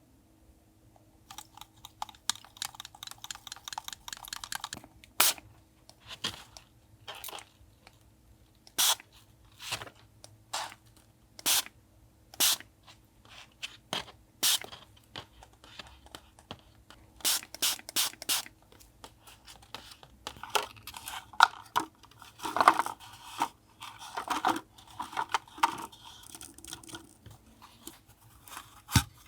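Close-up paper crafting sounds: paper being handled, torn and crinkled. A quick run of scratchy strokes gives way to separate sharp strokes about a second apart, then a stretch of crinkling near the end.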